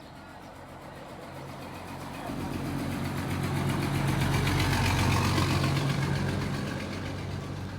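A motor vehicle's engine running steadily, growing louder to a peak about five seconds in and then easing off.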